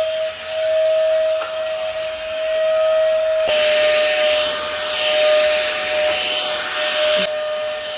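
Battery-powered cordless vacuum cleaner running on its maximum setting while vacuuming a sofa: a steady whine over rushing air. About three and a half seconds in, the air noise grows louder and the whine drops a little, then it eases back near the end.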